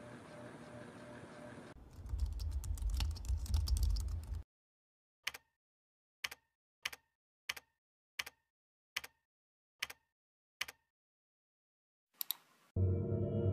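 Lenovo laptop keyboard typed on: a fast run of keystrokes over a low rumble, then eight single key presses a little under a second apart, and a last quick pair of clicks. Near the end a loud gong-like music tone comes in.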